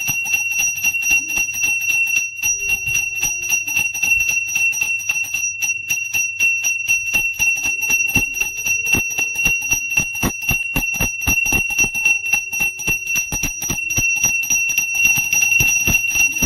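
Brass hand bell (puja ghanta) rung continuously for aarti, its clapper striking several times a second so that one high ringing tone holds steady.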